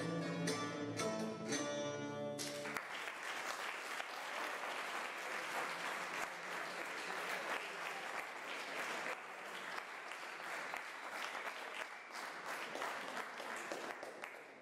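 A piece played on oud and other plucked strings ends about two seconds in, and the audience breaks into applause. The applause goes on and fades near the end.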